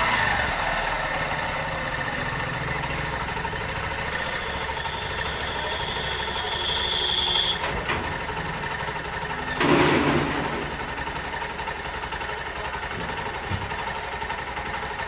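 Hero Passion Pro BS6's fuel-injected single-cylinder engine idling steadily while its idle-speed (RPM) screw is set at the throttle body. A short, louder rush of noise comes about ten seconds in.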